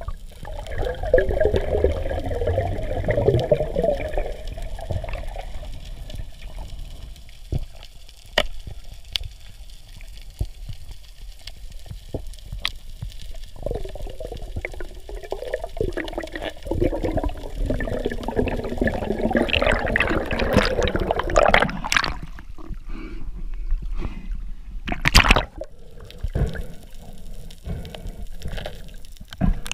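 Water gurgling and sloshing around a freediver's camera, in two spells, with scattered sharp clicks and a loud knock about 25 seconds in.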